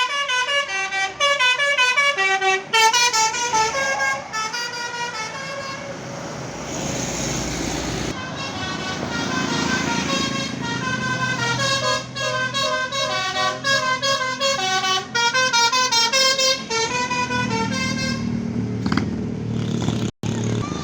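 Bus 'telolet' multi-tone horn playing quick melodic runs of short notes in two stretches. Between them, about six to eight seconds in, comes a rushing hiss, and the bus engine rumbles underneath after the horn stops near the end.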